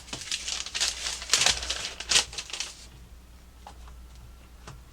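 Rustling and clicking of plastic parts and packaging being handled, dense for about three seconds, then a few faint clicks.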